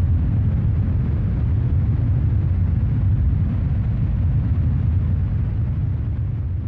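A deep, steady rumble that begins slowly fading out near the end.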